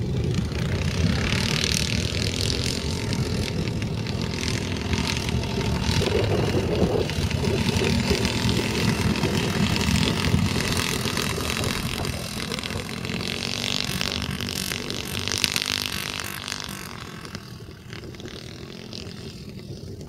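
Junior dragster's small single-cylinder engine running flat out down the drag strip. It is loudest as it passes, about halfway through, and fades near the end as it heads away.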